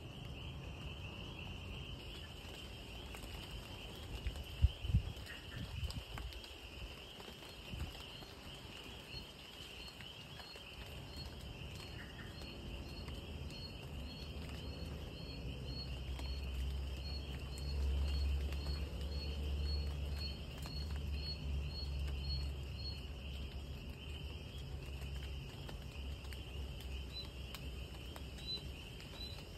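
Night insect chorus: a steady high trill of crickets, with a soft chirp repeating about once a second above it. Two sharp thumps come about five seconds in, and a low rumble swells in the second half.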